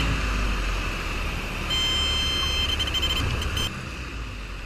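Light-aircraft cabin noise, a steady engine drone with rushing air, with a steady high electronic warning tone sounding for about two seconds in the middle.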